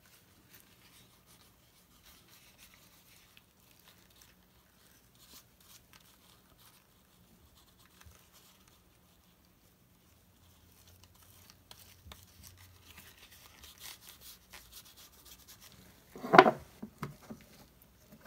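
Gloved fingers rubbing shoe grease into a leather knife sheath: faint, soft rubbing that gets busier about eleven seconds in. A short, much louder bump comes about two seconds before the end.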